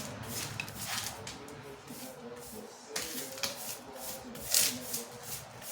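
Old thin-set mortar being scraped off a floor in repeated short strokes, with faint background music.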